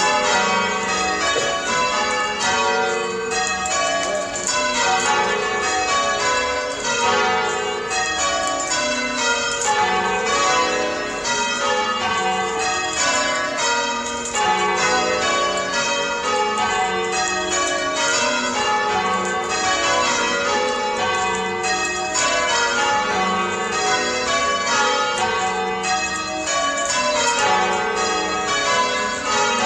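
Church bells being change rung from ropes pulled by a band of ringers in the tower, an unbroken stream of bell strikes following one another in a steady rhythm, each bell ringing on over the next.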